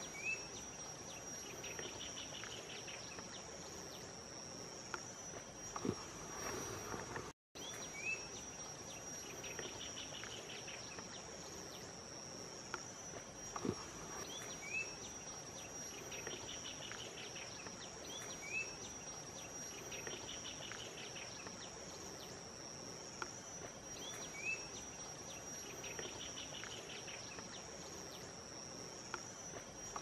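Steady high-pitched insect drone, with faint short chirps recurring every few seconds and a few scattered clicks. The sound cuts out for an instant about seven seconds in.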